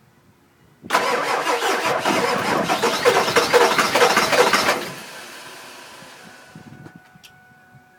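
A Ford 7.3 Power Stroke V8 turbodiesel is cranked on its starter for about four seconds, with a fast even pulsing, and then fades away. The truck has a no-start problem that the owner suspects lies in the injectors.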